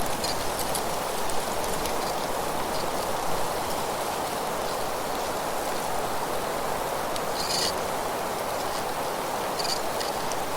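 Steady rushing of wind through trees and leaves, with a couple of short high-pitched sounds about seven and a half and nine and a half seconds in.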